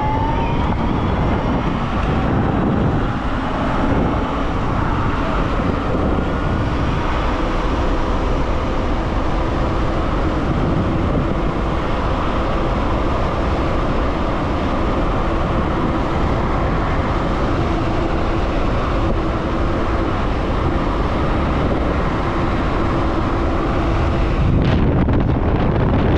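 Wind rushing over the microphone of a Dualtron X Limited electric scooter ridden at about 60 km/h, with a steady whine from its hub motors underneath. The low wind rumble grows louder near the end.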